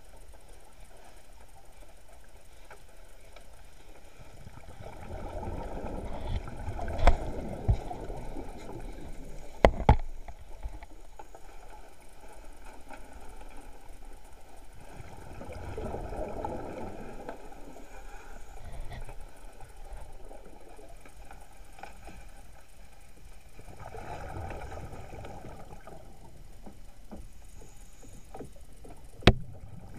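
Scuba divers' exhaled regulator bubbles rushing past an underwater camera, in three swells of a few seconds each, spaced roughly nine seconds apart, with a few sharp knocks between them.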